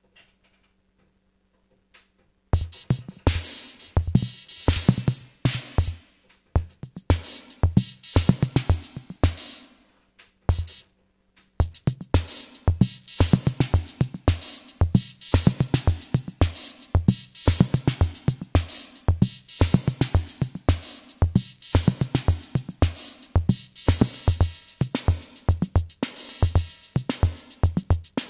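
Sound Master Stix ST-305 analog drum machine playing a programmed beat: deep electronic kick drum under bright hi-hat and cymbal hits. It starts about two and a half seconds in after a short silence, stops and restarts a few times, then plays without a break from about twelve seconds in.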